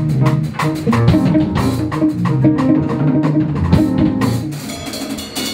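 Church band music under a sermon: a drum kit playing a quick, steady beat over sustained keyboard chords.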